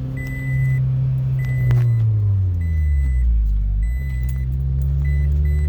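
2005 Scion tC's 2.4-litre four-cylinder engine running, heard from inside the cabin while driving: its hum drops in pitch about two seconds in and climbs again about four seconds in. A high electronic beep repeats throughout, coming faster near the end.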